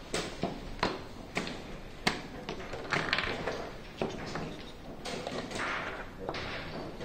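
Wooden chess pieces being set down on the board and chess clock buttons being pressed in blitz play: a string of sharp, irregular clacks.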